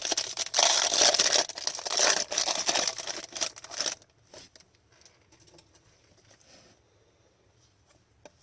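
Foil hockey card pack being torn open and crinkled, loud and rustling for about four seconds, then faint handling of the cards.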